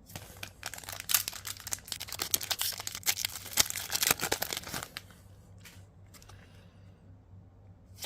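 Foil booster-pack wrapper being torn open and crinkled in the hands, a dense crackling rustle with many sharp crinkles for about five seconds, then quieter handling with a single click near the end.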